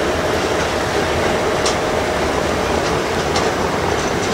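A slow container freight train climbing past behind an SBB Re 10/10 locomotive pair: a steady rumble of rolling wagons with a few sharp wheel clicks. A steady whine from the departing locomotives fades away about a second and a half in.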